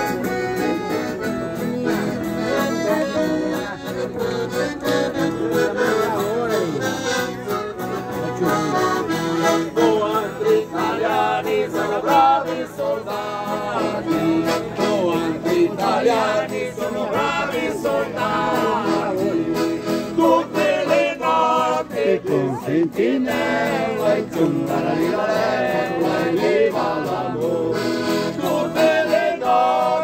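Live accordion and acoustic guitar playing a lively traditional tune, with men's voices singing along.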